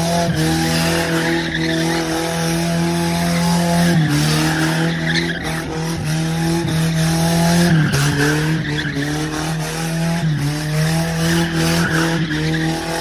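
Toyota KE70 Corolla drift car held at steady high revs while drifting, its tyres skidding and squealing on the pavement. The revs dip briefly and pick up again about three times.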